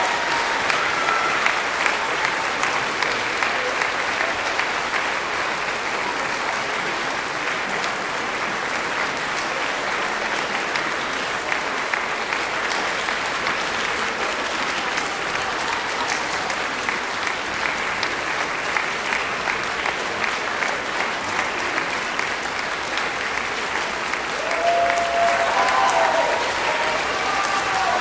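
Concert hall audience applauding steadily, with a voice calling out from the crowd near the end.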